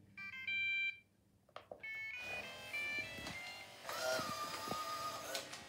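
iRobot Braava Jet robot mop playing its electronic tones as it is switched on and starts: a short run of beeping notes, a pause, then another run of notes ending in a longer held tone near the end, with a few light clicks in between.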